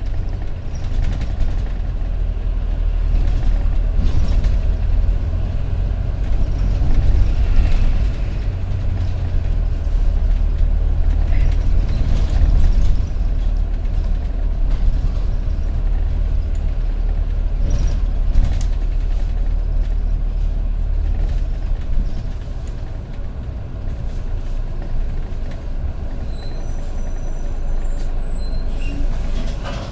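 City bus running, heard from on board: a steady low engine-and-road rumble that eases off about three-quarters of the way through, with a few brief high thin tones near the end.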